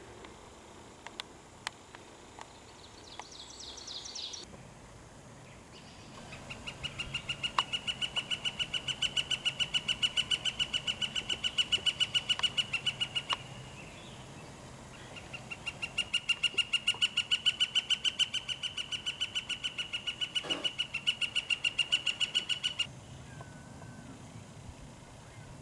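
An animal's long, rapid pulsed trill, given twice for about seven seconds each with a short gap between, loud and close. A brief high chirp comes a few seconds before the first trill.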